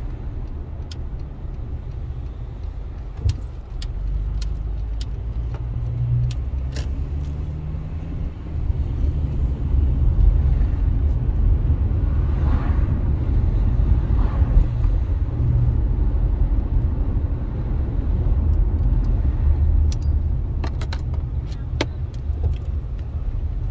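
A car driving, heard from inside the cabin: a steady low engine and road rumble that gets louder about nine seconds in as it picks up speed. Small light clicks and rattles come and go, with a cluster near the end.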